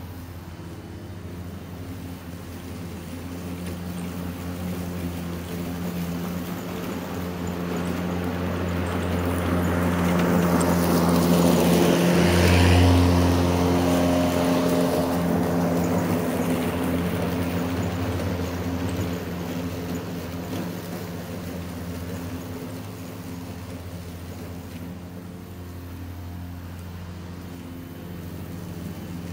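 Ryobi 40-volt cordless twin-blade lawn mower running and cutting grass: a steady electric hum with a hiss of cut grass. It grows louder as the mower passes close by, about halfway through, then fades as it moves away.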